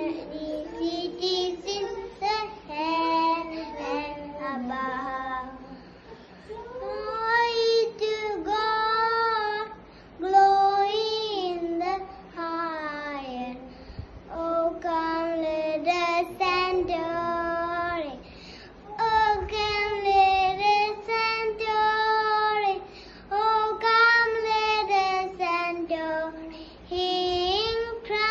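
A young boy singing solo and unaccompanied, in phrases of held notes with short breaks for breath between them.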